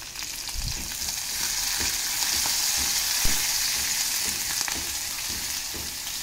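Green chillies and curry leaves sizzling in hot oil with garlic and ginger in a kadai, stirred with a spatula that knocks softly against the pan, once sharply about three seconds in.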